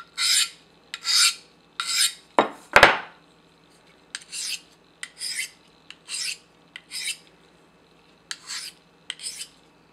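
A knife blade is scraped in quick alternating strokes across a hand-held coarse DMT diamond plate, then across a Spyderco Double Stuff ceramic stone, each stroke a short hiss. The edge is being brought back from dull. About three seconds in there is a sharp knock as the stones are switched, and the strokes after it are lighter and quicker.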